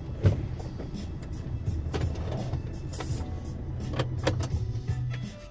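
A vehicle engine idling with a steady low rumble, with a few sharp clicks over it.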